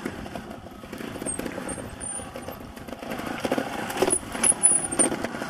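Trials motorcycle engine revving in short throttle blips as the bike climbs over rocks, getting louder in the last couple of seconds.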